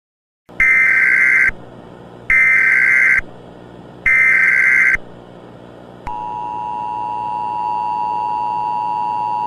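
Emergency Alert System broadcast tones: three one-second bursts of the screeching SAME header data, a little under a second apart, then the steady two-tone attention signal from about six seconds in. Faint static and hum lie underneath.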